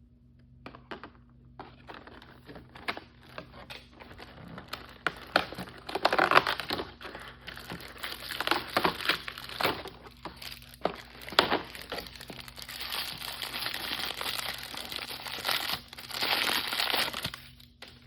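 Crinkly blind-bag packaging being handled and crumpled: a dense run of crackles and rustles. It starts about a second in, gets louder about six seconds in and again near the end, and stops just before the end.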